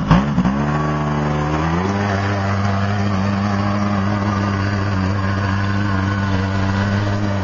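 Small four-wheeler's engine revving up over the first two seconds, then running steadily at high revs.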